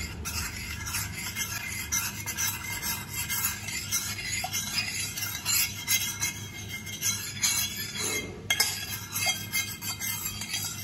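Metal spoon scraping and clinking against the inside of a stainless-steel saucepan in repeated stirring strokes, mixing tapioca flour into water.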